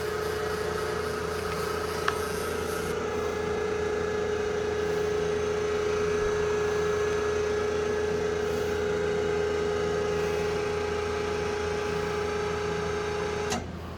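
W.F. Wells W-9 horizontal band saw running with a steady hum and a constant tone while its head raises automatically after the cut, then cutting off abruptly near the end.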